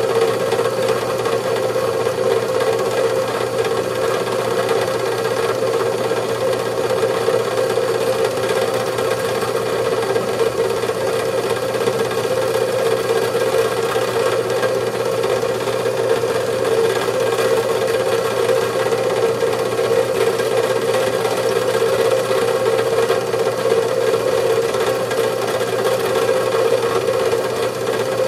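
Industrial mixer running steadily, a constant motor hum with a busy rattle from the mechanism.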